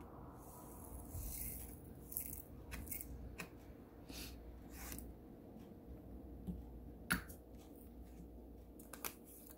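Faint, irregular small clicks and scratchy rustles of diamond painting: resin drills being picked up from the tray and pressed onto the canvas, with a brief higher rustle about a second in. A low steady hum runs underneath.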